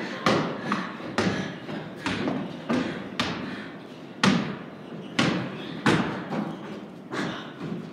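A basketball bouncing on a wooden plank floor, irregular hard thuds about once a second as it is dribbled and handled. Each thud echoes in the large wooden barn loft.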